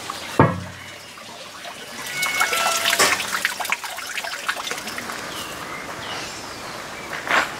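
Water trickling and dripping, with a sharp knock about half a second in and another short thump near the end.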